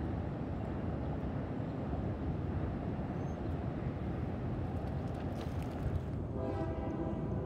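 Steady low outdoor rumble while the railroad crossing gates rise. About six seconds in, a railroad crossing warning bell starts ringing, a set of steady stacked tones.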